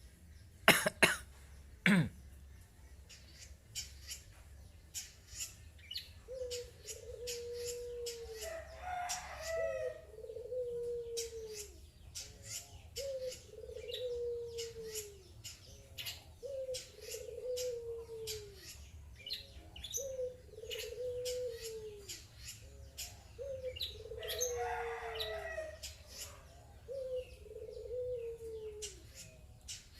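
Long-tailed shrike calling: a steady run of short, sharp high notes, with a harsh rasping call twice. Under it, a low drawn-out note rises, holds and falls, repeated about every three and a half seconds. Two sharp clicks come about one and two seconds in.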